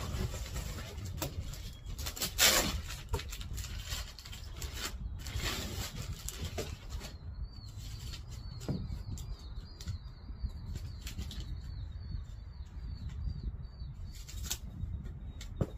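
Rustling and handling of new cushions and their packaging at a cardboard box, with a louder rustle about two and a half seconds in. From about halfway a small bird chirps in a quick repeated series in the background.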